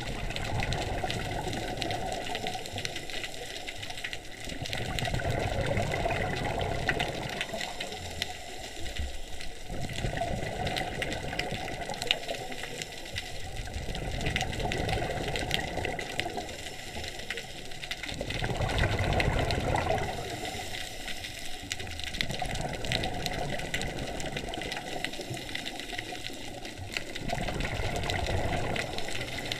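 Scuba diver breathing underwater through a regulator: slow breath cycles, each swelling into a wash of exhaled bubbles every few seconds, over a faint steady whine.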